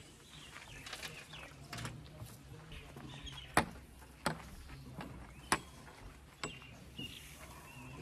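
Cloth being rubbed over the glass of a backhoe's cab, with several sharp knocks and taps against the glass and cab frame. A low steady hum and faint animal calls sit behind it.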